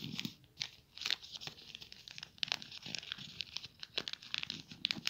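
A sheet of ruled notebook paper being folded and creased by hand, with irregular crinkling and sharp crackles as the folds are pressed flat.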